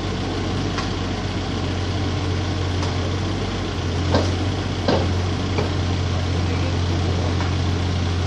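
Yanmar mini excavator's diesel engine running steadily, with two short sharp knocks about four and five seconds in.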